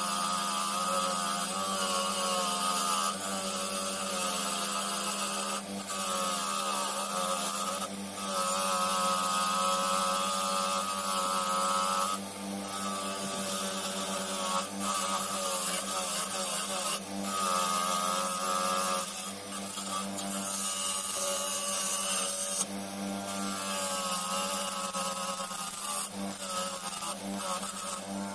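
Bench grinder running with a wire wheel brushing rust off the steel jaws of a Bahco No. 31 alligator wrench. A steady motor hum sits under a wavering scraping whine, broken by several short dips where the wrench comes off the wheel and is turned.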